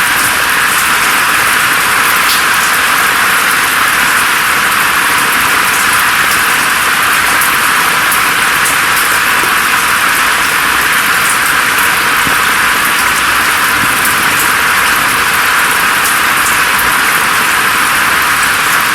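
Steady rainfall: a dense, even hiss of rain strongest in the upper middle range, with faint scattered drop ticks. The low end is cut away sharply, so the rain sounds thin and bright.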